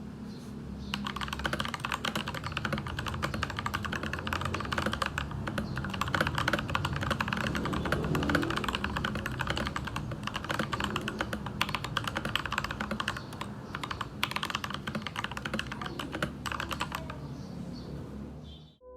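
Continuous fast typing on a mechanical keyboard fitted with Gazzew Boba U4T tactile switches: a dense stream of keystroke clacks that starts about a second in and eases off a couple of seconds before the end, over a steady low background rumble.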